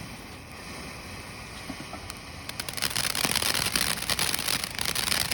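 A lit consumer firework goes off about two and a half seconds in, with a dense, continuous hiss of rapid crackles.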